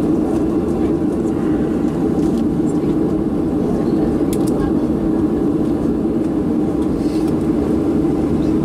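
Steady cabin drone heard from a window seat inside a Boeing 737-700 as it moves slowly on the ground, even in level throughout.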